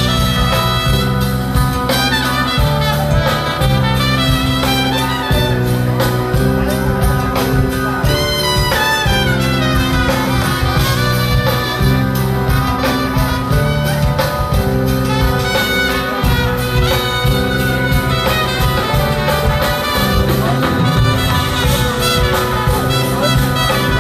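Live jazz-fusion band playing loudly through a large concert PA, a brass section led by trumpet over bass and drums, with a falling pitch glide about nine seconds in.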